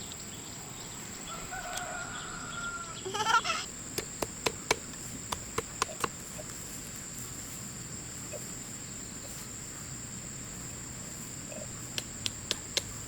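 Chicken calling: a drawn-out call about two seconds in, then a loud short squawk. A run of sharp knocks follows, twice, over a steady high-pitched whine.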